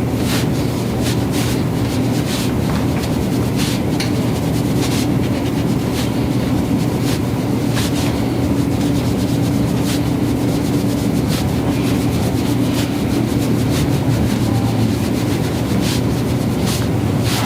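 A steady low mechanical hum, like a small motor running close by, with faint scattered clicks over it.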